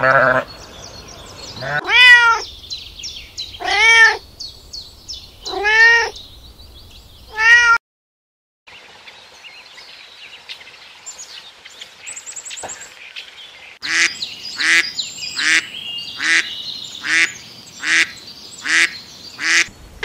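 Animal calls: four drawn-out cries about two seconds apart, each rising then falling in pitch. After a short break come faint high chirps, then a quick run of shorter calls about every half second.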